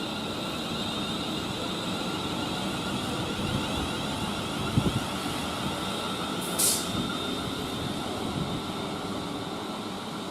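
A train on the West Coast Main Line running, a steady rumble with a constant high whine. There is a knock about halfway through and a short hiss about two-thirds of the way in.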